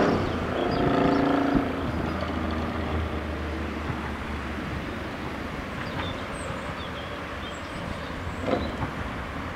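A passing vehicle's running sound dies away over the first two seconds, leaving a low steady rumble with a few faint knocks.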